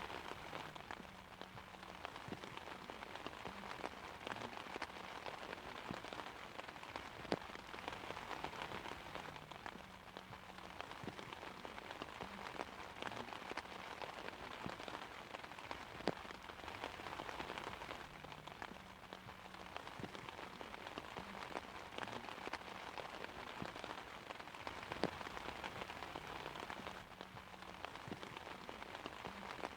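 Steady rain falling on an umbrella: an even hiss of drops, with a few heavier single drops striking sharply, about every nine seconds.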